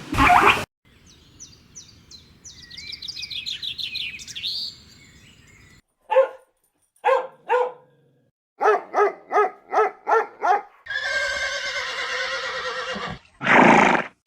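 A series of different animal calls in quick succession: a run of high chirping calls, then a few short pitched calls, a quick run of about eight similar calls, a rougher two-second call, and a loud call near the end.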